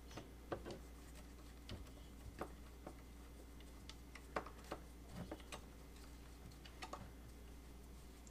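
Stubby hand screwdriver turning a set screw through a drawer front into a cabinet handle: faint, irregular clicks, about one or two a second.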